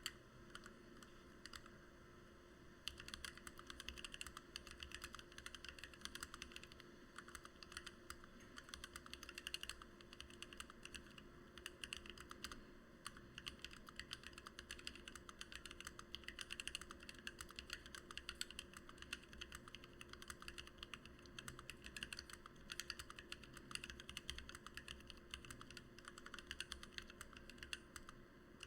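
Fast, continuous typing on a Lily58 split mechanical keyboard with lubed Gateron Black Ink V2 linear switches, an acrylic plate and PBT OEM-profile keycaps. It starts with a few scattered keystrokes and becomes a dense, steady run of keystrokes about three seconds in.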